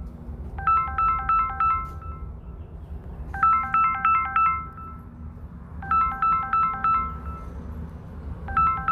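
Electronic ringtone melody of short, clipped tones, the same phrase repeating about every two and a half seconds, over a low steady hum.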